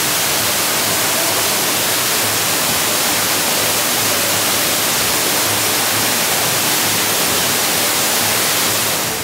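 Loud, steady rushing noise with no distinct events, which drops away just before the end.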